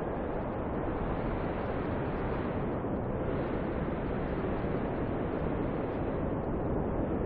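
Snowstorm wind blowing steadily, a continuous deep rush of noise with no gusts or breaks.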